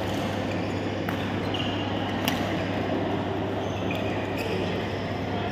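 Badminton hall ambience between rallies: a steady hum of the hall's fans, brief squeaks of court shoes on the synthetic court mat, and one sharp click about two seconds in.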